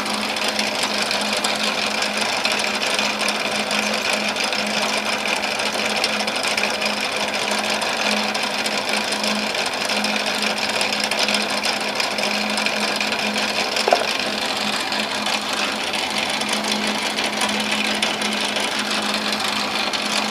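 Small electric motor of a homemade lathe running steadily: an even whirring with a constant low hum, and one short click about two-thirds of the way through.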